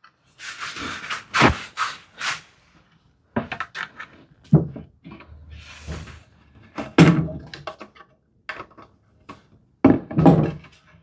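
Tools and wooden workpiece being handled on a bench: scattered knocks and clicks with a few brief scrapes, as screw holes are started for a brass hinge on a cherry lid.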